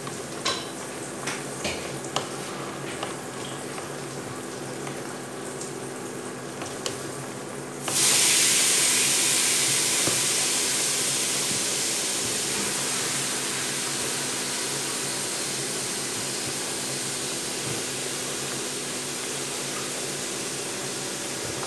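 A pot of taro leaves cooking in coconut milk, stirred with a wooden spatula that knocks and clicks against the steel pot. About eight seconds in, a loud sizzling hiss starts suddenly and slowly fades away.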